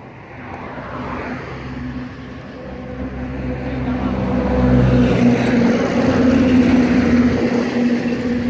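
A small engine running, growing steadily louder over the first five seconds and then staying loud.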